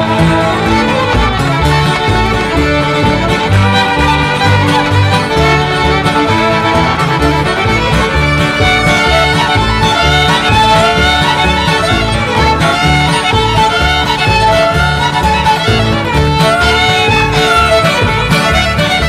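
Live old-time string band music for mountain dancing: a fiddle carries the melody over strummed acoustic guitar, with regular low bass notes on the beat.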